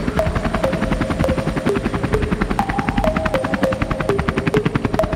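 Helicopter rotor chopping in a fast, even beat, with a simple synth line of held notes stepping between a few pitches over it.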